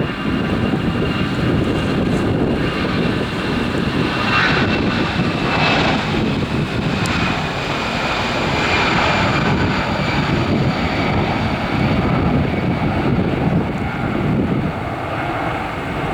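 Airbus A320 jet airliner's twin CFM56 turbofan engines at takeoff thrust: a steady rumble under a high fan whine that slowly falls in pitch.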